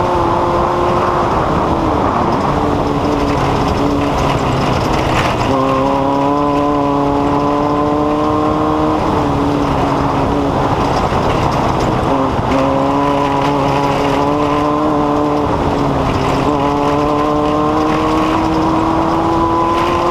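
Engine running continuously with a whine that climbs slowly in pitch, drops back and steps up again several times, like a vehicle working through changing speed.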